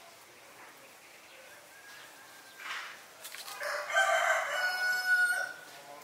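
A rooster crowing once, one long call of about two seconds in the second half, with a few faint short bird chirps before it.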